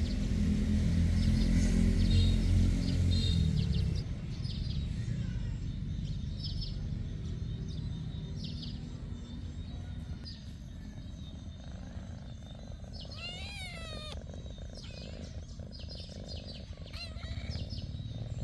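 A low rumble for the first four seconds cuts off. Then comes outdoor background with birds chirping in short, irregular high notes, and one call of several quick falling notes about two-thirds through.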